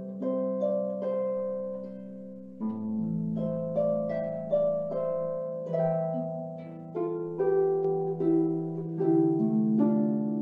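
Concert harp being played, heard through a video call: a slow melody of plucked notes that ring and fade over one another, with deeper bass notes joining about two and a half seconds in.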